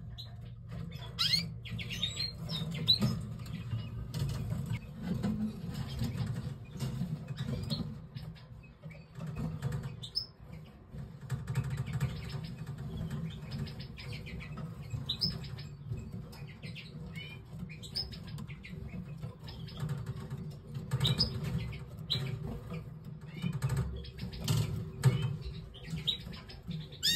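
Pair of canaries giving short chirps and call notes at irregular intervals, over a steady low hum.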